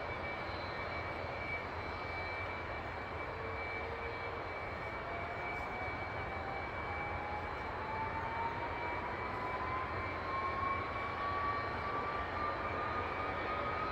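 Jet airliner engine running, with a steady high whine. From about five seconds in, a second whine rises slowly in pitch and the noise grows a little louder.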